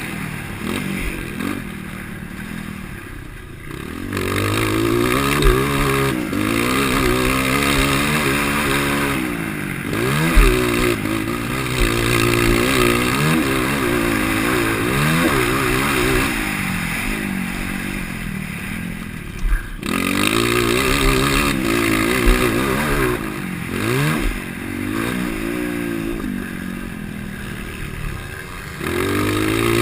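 230 cc motocross bike engine with an aftermarket DORE header pipe and muffler, revving hard and easing off again and again as it is ridden around the track, with a few short sharp knocks.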